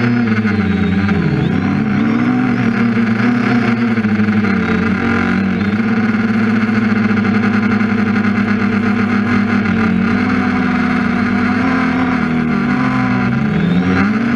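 TBS Discovery quadcopter's brushless motors and propellers whining steadily in fast, low flight, heard from the onboard camera. The pitch dips sharply and climbs back about a second in and again near the end.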